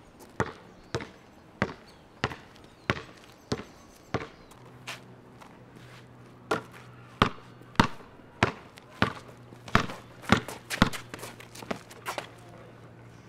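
A basketball bouncing on a concrete court, dribbled in a steady rhythm of a little under two bounces a second; the bounces grow louder from about six seconds in.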